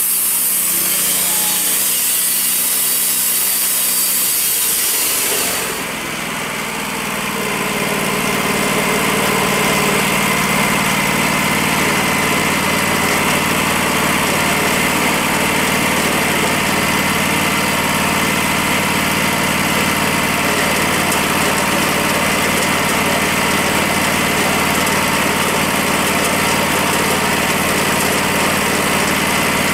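Wood-Mizer LT40 band sawmill running: a high hiss from the saw head for about the first five seconds, which stops, then the mill's engine runs on steadily.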